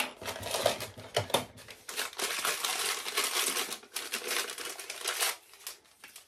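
Small plastic packaging bag crinkling in the hands as it is handled and opened, dense crackling that eases off about five seconds in.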